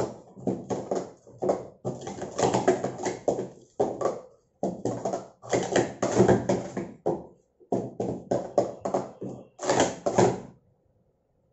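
Plastic sport-stacking cups clacking against each other and the mat as they are rapidly stacked up and down through a full competition cycle, in quick clusters of clatter. The clatter stops suddenly about ten and a half seconds in, as the cycle is finished.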